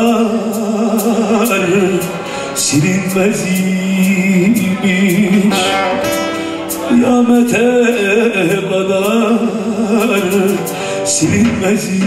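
A man singing a Turkish folk song in long held notes with a strong wavering vibrato, accompanied by a plucked long-necked bağlama (saz).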